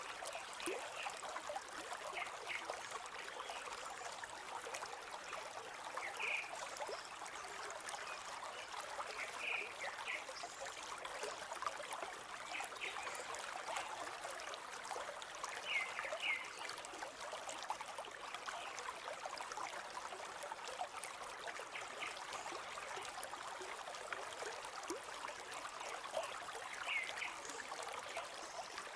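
Steady rushing flow of a forest river, with short bird chirps breaking in every few seconds, sometimes in pairs.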